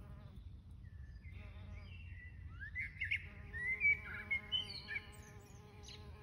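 Bumblebee buzzing in flight around bugle flowers: a short buzz at the start and another about a second in, then a steady buzz from about three seconds in until near the end. A bird sings in the background with bright chirps between about two and five seconds in, the loudest sounds here.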